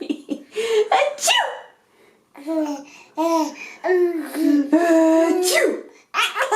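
A baby girl laughing in repeated short bursts, with a woman's sneeze among them.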